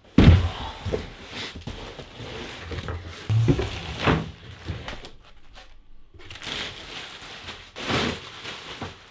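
A large flat cardboard box thuds down onto a plywood worktop, then cardboard and plastic wrapping rustle and crinkle as metal pegboard panels are unpacked, with a few knocks of the panels in between. The crinkling of plastic sheeting being pulled off is loudest near the end.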